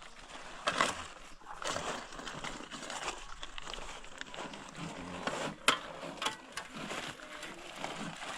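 Handling noise of a phone camera being passed from hand to hand: irregular rustling and rubbing with scattered sharp clicks and knocks, the loudest knock near the middle.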